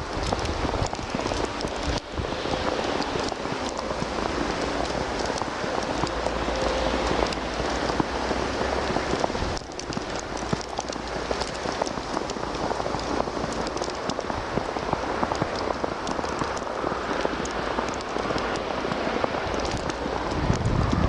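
Heavy wet snow falling, a dense, steady patter of many small ticks as the flakes land on nearby surfaces.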